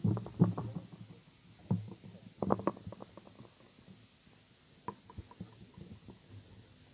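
Handheld microphone being handled through the PA: low thumps and knocks in a few short clusters, then a run of small clicks, as the mic is taken up and settled before speaking.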